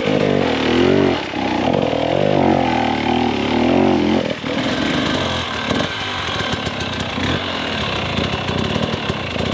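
Hard enduro dirt bike engines revving hard in repeated throttle bursts as the bikes claw up rocky, steep forest ground. About four seconds in the sound cuts to a second bike with a lower, choppier engine note and many short knocks.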